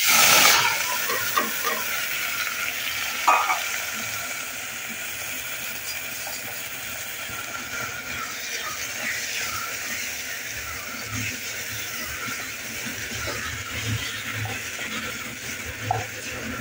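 Rice poured into hot ghee in a pressure cooker sets off a loud sizzle at the start, settling into a steady frying sizzle as a wooden spatula stirs it through. There is a sharp knock about three seconds in.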